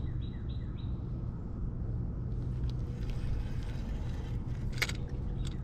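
Low, gusting rumble of wind on the microphone, with a bird chirping four quick times in the first second and one sharp click near the end.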